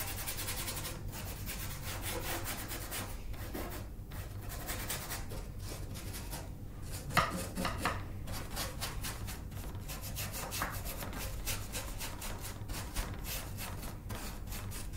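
Paintbrush working fairly dry oil paint onto canvas: many short brush strokes in an uneven rhythm.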